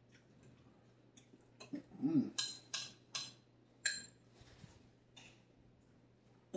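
A spoon clinking and scraping in a ramekin, with a handful of sharp clinks in the middle. A brief low murmur comes just before them.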